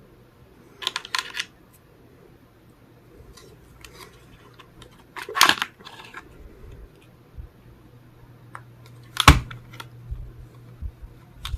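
Parts of a Tokyo Marui MP7A1 gas blowback airsoft gun clicking and clacking as it is field-stripped by hand. A cluster of clicks comes about a second in, a louder clatter in the middle, and the sharpest knock about nine seconds in.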